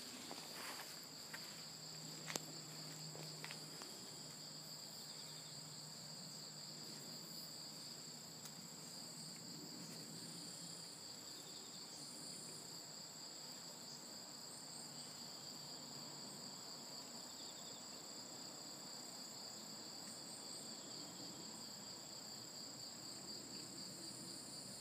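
Steady high-pitched insect chorus, holding two constant pitches without a break. There is a single sharp click a little over two seconds in.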